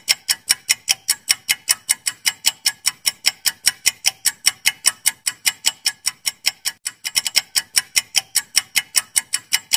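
Countdown-timer ticking sound effect: a fast, even clock-like tick, about five ticks a second.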